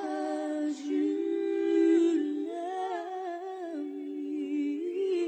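Two women singing a ballad duet live in close harmony, holding long notes that step slowly up and down.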